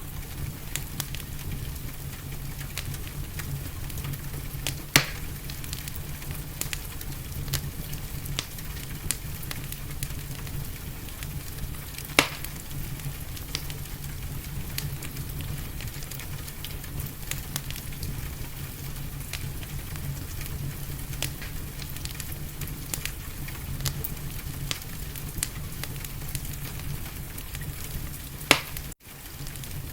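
Wood fire crackling in a fireplace, with a constant patter of small sharp snaps and a few louder pops, over a steady hiss of rain and a low rumble. Near the end the sound briefly cuts out.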